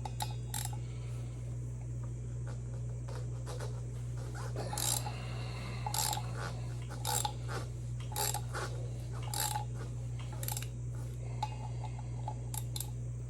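Metal clinks of a Torx bit and wrench working the bolts on a motorcycle rear wheel's sprocket, with small metallic rings at irregular spacing about once a second. A steady low hum runs underneath.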